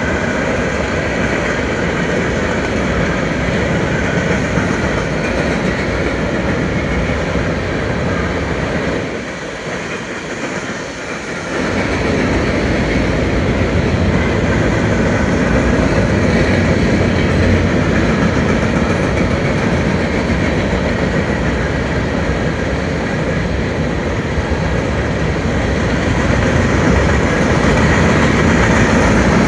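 Covered hopper cars of a freight grain train rolling past on the rails, a steady loud rolling rumble of steel wheels on track. The noise dips briefly about nine seconds in, then returns.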